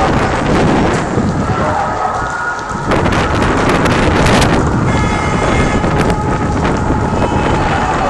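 Large building fire roaring, with dense crackling and popping throughout; the noise gets louder about three seconds in.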